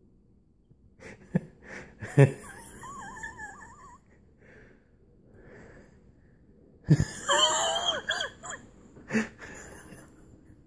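A cat at play with a dangled toy: a few sharp knocks and thumps, and high, wavering squeaky sounds, one starting about two seconds in and another about seven seconds in.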